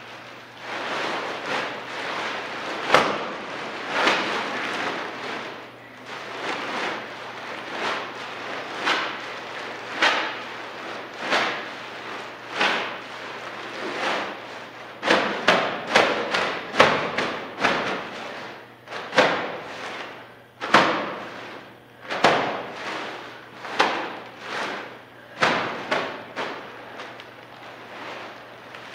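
Plastic trash bags full of clay hitting and being pressed against a concrete floor again and again, at irregular intervals about a second apart, with a quicker run of blows about halfway through. A faint low hum runs underneath.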